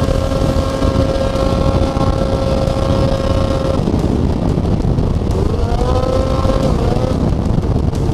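Snowmobile engine running at speed over heavy wind and track noise. Its steady pitch breaks off about four seconds in, then an engine note climbs again between about five and seven seconds as the throttle comes back on.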